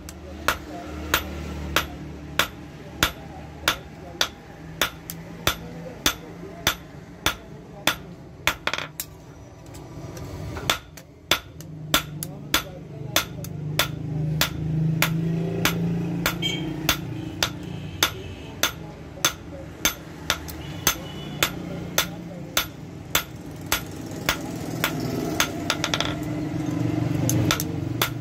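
Hand hammer forging red-hot file steel on a steel anvil block: sharp, ringing blows about two a second, with a short pause about ten seconds in. A low steady hum runs underneath and grows louder near the end.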